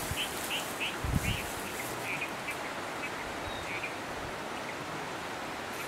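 A bird calling in short, repeated high notes, about seven of them over the first four seconds, over a steady outdoor hiss. A single low thump comes about a second in.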